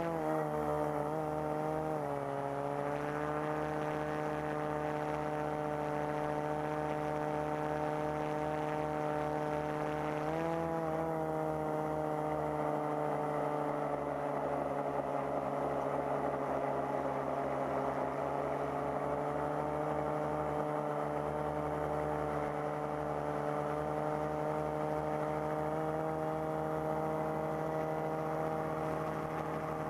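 FPV quadcopter's electric motors and propellers whining steadily. The pitch climbs as the throttle comes up at the start, wavers a second or two in, surges briefly about ten seconds in, then holds mostly level.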